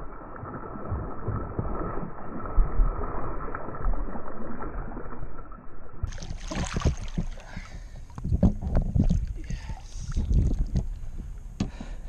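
Water splashing and sloshing as a big hooked bass thrashes at the surface and is scooped into a landing net, muffled for the first half. About halfway through the sound turns clearer, with a run of sharp knocks and splashes as the net with the fish is lifted aboard the boat.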